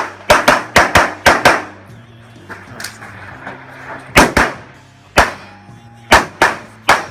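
Handgun shots fired rapidly in a practical-shooting stage: a quick string of six, then a pair, a single shot, three more and a last one, about thirteen in all.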